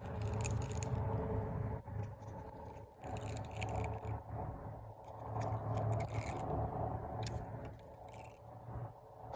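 Baitcasting reel and line being handled to sort out a fouled cast: scattered light metallic clicks and rattles over a steady low hum.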